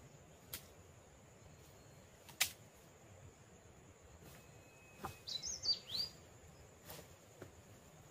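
Dead twigs and branches snapping as they are handled in dense brush: a few sharp, separate snaps, the loudest about two and a half seconds in. A short bird chirp with quick up-and-down pitch slides about five seconds in.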